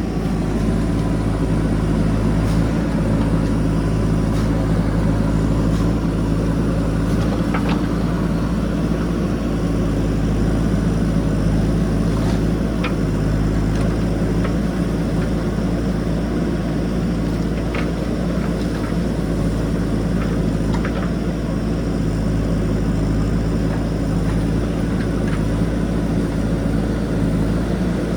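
JCB backhoe loader's diesel engine running steadily, with a few faint clicks and knocks over it.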